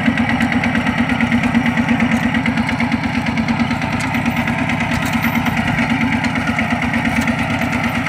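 Two-wheel walking tractor's single-cylinder diesel engine running steadily, with a fast, even chugging beat.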